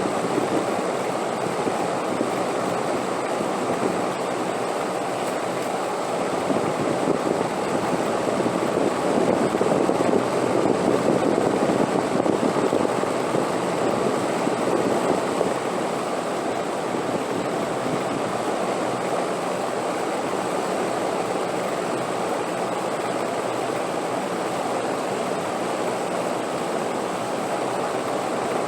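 Steady wind blowing, a continuous rushing that swells a little about ten seconds in and then settles.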